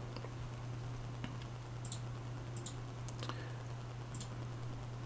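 Faint computer mouse clicks, a handful at irregular intervals, over a steady low electrical hum.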